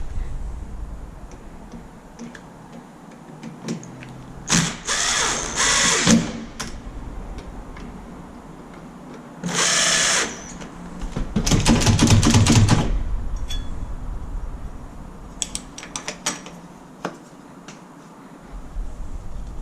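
Power drill run in three short bursts, the last and longest with a low pitched whine, with a few sharp clicks and taps of tool work in between.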